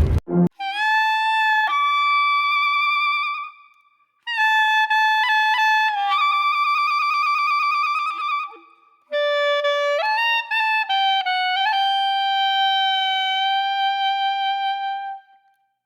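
Music: a solo melody on one wind-like instrument, played in three phrases with short silent gaps between them.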